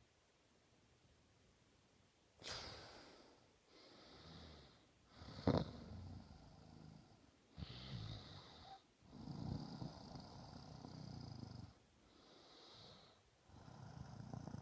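A sleeping woman snoring: after a couple of quiet seconds, a run of noisy breaths in and out, each a second or two long, with one sudden loud snort about five and a half seconds in.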